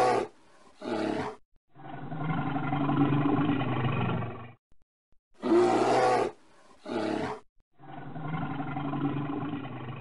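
Bear roaring: short roars followed by a long growling roar of about three seconds, the same sequence heard twice.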